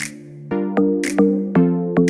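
Electronic background music: synthesizer chords over a steady beat, with a sharp snare-like hit about once a second.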